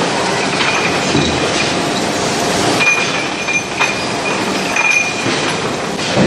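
Chain-driven furnace feeding conveyor running with a steady metallic clatter and clinks of metal stock, with a couple of short high squeals a few seconds in.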